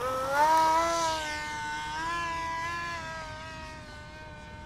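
RC airplane's electric motor and propeller whining under throttle on the takeoff run. The pitch climbs and the sound is loudest in the first second, then it holds fairly steady with slight wavers as the plane climbs out.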